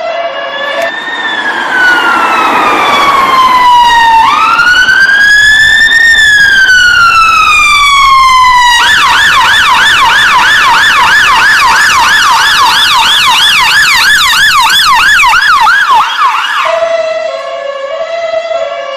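British ambulance siren cycling through its tones. It opens briefly on the stepped two-tone, then gives a slow wail that falls, rises and falls again. About nine seconds in it switches to a fast yelp of about three warbles a second, and near the end it goes back to the two-tone.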